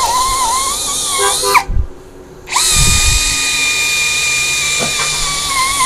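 Brushless 13 mm cordless drill running under load as a long wood auger bit bores deep into hardwood, its motor whine wavering lower at times. It stops with a falling whine about one and a half seconds in, and starts again about a second later. The battery circuit does not cut out under the heavy load.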